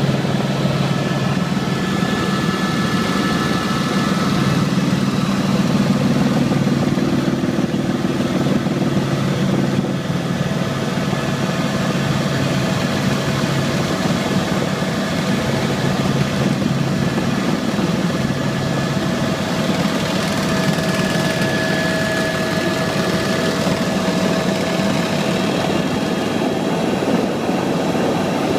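Helicopter running steadily: a continuous drone of engine and rotor, with a few faint steady higher tones over it.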